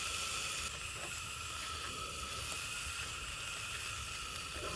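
Pulled pork, eggs and cheese frying in a pan, sizzling steadily.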